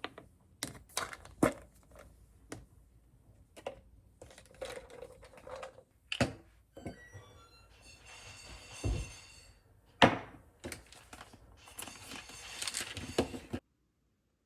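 Handling noises in a small room: a string of knocks, taps and thunks of objects being set down and moved, with a few longer scraping or rustling stretches. It cuts off suddenly near the end.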